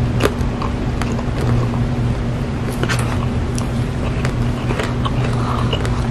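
Plastic spoon scraping and tapping in a paper cup of soft-serve chocolate-caramel sundae, with wet mouth and eating sounds: irregular small clicks and scrapes. Under it runs a steady low hum, louder than the eating sounds.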